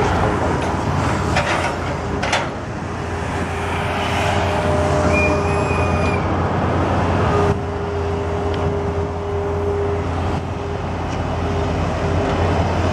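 Caterpillar 320L hydraulic excavator working: its diesel engine runs under load with steady hydraulic whine. There are a couple of sharp clanks from the bucket in dirt and rock in the first few seconds, and a brief high squeal about five seconds in.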